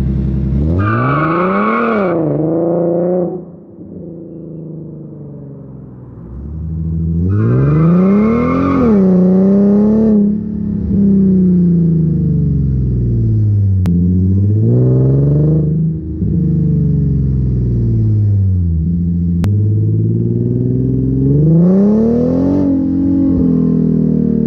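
Infiniti Q50's engine and exhaust in several hard accelerations. The pitch climbs and then drops back at each gearshift, and the engine goes nearly quiet once, a few seconds in, when the throttle is lifted.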